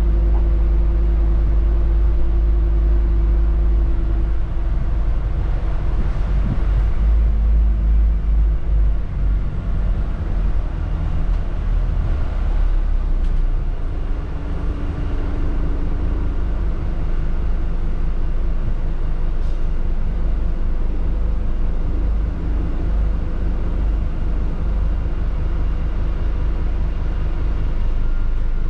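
Scania N250UD double-decker bus on the move, heard from inside the upper deck: its five-cylinder diesel engine and the road noise make a steady low rumble.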